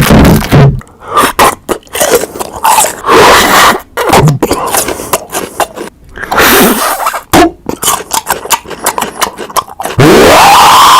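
Loud, heavily distorted alarm sound-effect audio chopped into short, clipped bursts of noise. Near the end a siren tone rises in pitch and holds steady.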